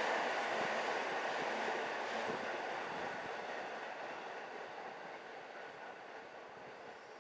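A train that has just passed, its running noise fading steadily as it moves away.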